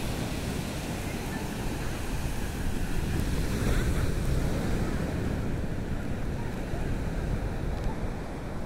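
Sea surf washing onto a sandy beach, with wind buffeting the microphone in a steady, low rumbling noise.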